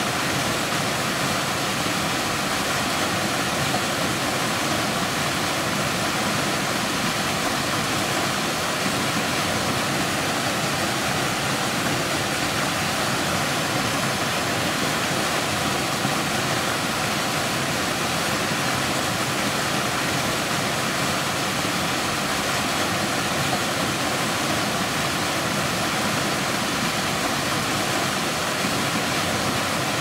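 Mountain waterfall plunging into a rock pool: a steady, unbroken rush of falling water.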